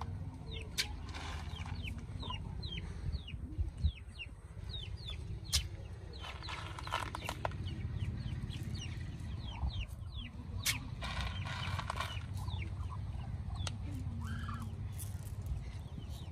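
Poultry calling: a steady run of short, falling peeps like those of chicks or ducklings, with a few louder clucking calls. A few sharp clicks and a low steady rumble sit under it.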